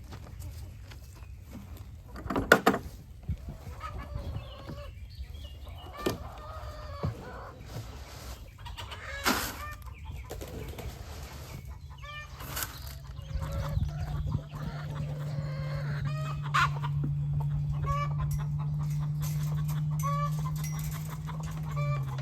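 Chickens clucking in short, repeated calls, with a loud clatter about two and a half seconds in and another sharp noise near nine seconds. A steady low hum joins in about halfway through.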